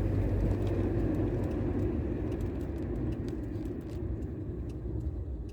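A low, noisy rumble that slowly fades, with faint scattered clicks above it.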